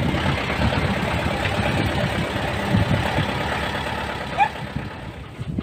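Small truck's engine running as it drives, heard from inside the cab, with a constant low rumble and body rattle; the sound eases off near the end.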